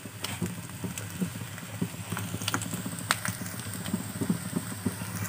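Steel spatula stirring puffed rice in a wok: a run of small irregular clicks and scrapes of metal on the pan and the dry grains, with a few sharper ticks midway.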